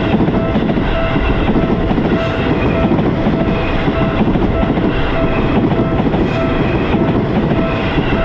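Japanese level-crossing alarm bell ringing in a steady, evenly spaced kan-kan rhythm, about one and a half strikes a second, over the loud rumble and wheel clatter of a passing train.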